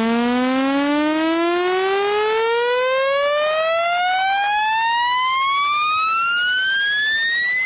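Speaker water-ejection tone: one buzzy tone gliding steadily upward in pitch, from low to high, played to shake water out of a wet phone speaker.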